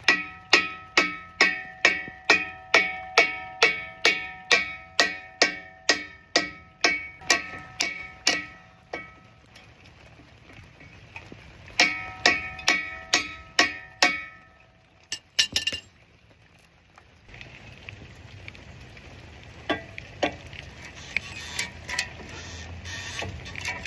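Hammer blows on a metal part, about three a second, each leaving the metal ringing at the same bright pitches; a run of some twenty-five blows, a pause, then a shorter run of about seven. After that come a few loose clicks over a low steady background noise.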